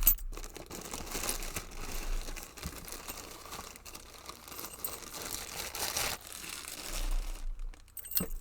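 Wrapping around a packed lock crinkling and rustling as it is handled and unwrapped, with a few small ticks, fading out near the end.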